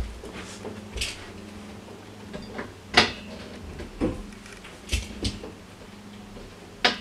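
Scattered clunks and knocks, about six in all, the loudest about three seconds in, as a metal X-frame keyboard stand holding two keyboards is gripped and shifted.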